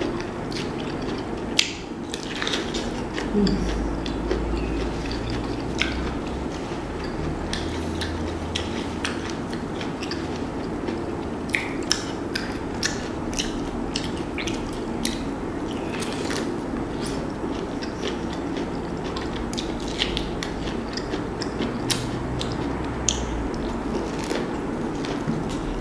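Close-up eating sounds: biting and chewing sauce-coated corn on the cob, with frequent short wet mouth clicks and smacks over a steady low hum.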